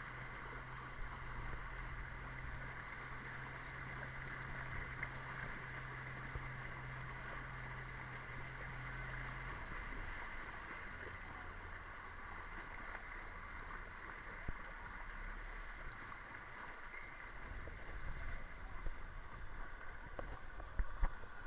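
Boat motor running steadily amid rushing water, its low hum dropping in pitch about halfway through.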